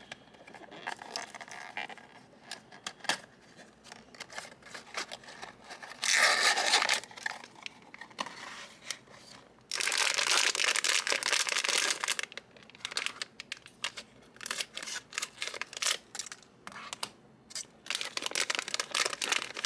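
Blind-box packaging being torn open and handled: steady crinkling and crackling, with two longer tearing sounds, one about six seconds in and a longer one of about three seconds at around ten seconds in.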